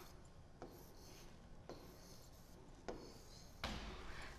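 Faint scratching and light taps of a stylus writing numbers on the glass screen of an interactive smart board, in a few short strokes about a second apart.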